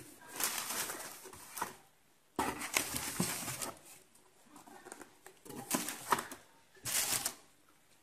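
Cardboard box and plastic packaging being handled and shifted, rustling and scraping in four separate bursts.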